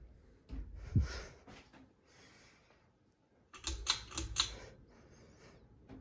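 Handling noise with a thump about a second in, then a quick run of sharp clicks and rattles a little past the middle.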